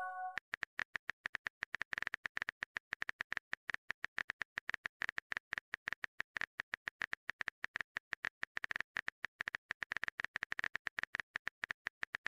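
Rapid run of keyboard-typing clicks, about ten a second, the typing sound effect of a texting-story chat animation. The tail of a short chime fades out right at the start.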